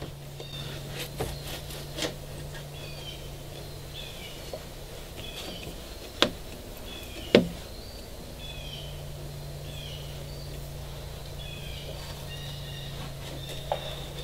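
Small birds chirping again and again over a low steady hum that drops out for a few seconds midway. A few light knocks, the two loudest about six and seven seconds in, come from the brass drain tube being handled in its hole in the fiberglass transom.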